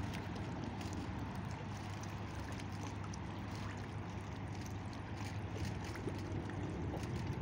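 Steady outdoor waterside ambience: an even wash of noise over a continuous low hum.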